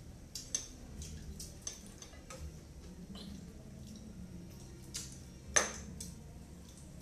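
Eating at a table: wet chewing and lip-smacking with scattered light clicks of plates and utensils, and one sharper click about five and a half seconds in.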